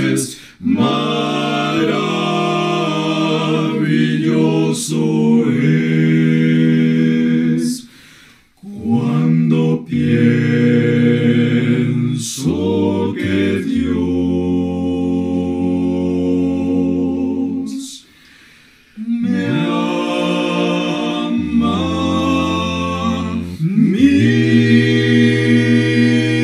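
Male vocal quartet of two tenors, a baritone and a bass singing a Spanish hymn a cappella in close harmony. The singing comes in phrases with two short pauses, and one chord is held for several seconds in the middle.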